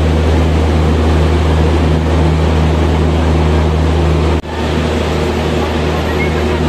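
Steady low engine drone from a train at the platform. It cuts out for an instant about four and a half seconds in, then carries on slightly quieter.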